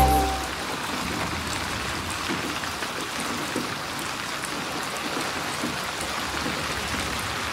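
Steady rain falling, an even hiss with scattered drop ticks. The tail of a music track dies away in the first half-second.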